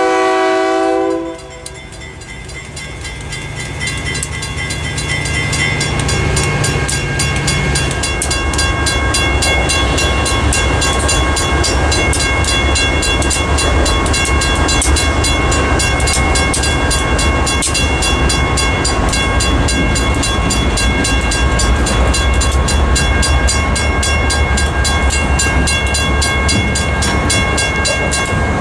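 A diesel locomotive's horn cuts off about a second in. Then a Federal Signal mechanical crossing bell rings with fast, even strokes and stops near the end, over the low rumble of a GE B39-8's V16 diesel engine as the locomotive moves across the crossing.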